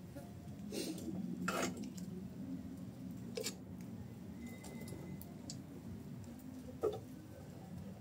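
Wood fire crackling in clay stoves, with a few sharp knocks and clinks of cookware being handled at the stove, the loudest about a second and a half in.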